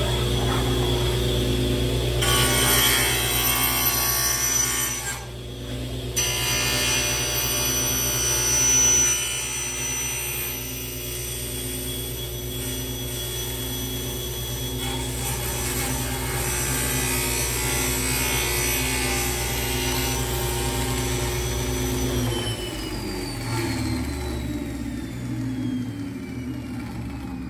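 Table saw running and ripping a thin plywood sheet: the blade's cutting noise is loudest over the first ten seconds or so, then the saw runs free. Near the end it is switched off and its whine falls steadily as the blade spins down.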